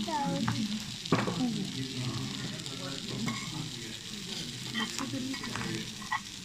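Grilled chicken sizzling on cast-iron sizzler plates, with clicks of a metal fork and tongs against the plates: a sharp one about a second in and a few more near the end.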